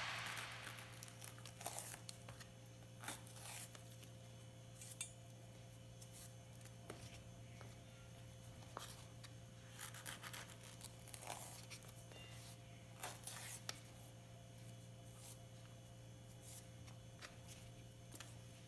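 A kitchen knife cutting and peeling saba bananas on a wooden cutting board: irregular soft clicks and scrapes of the blade against the board and the peel tearing away, over a steady low hum.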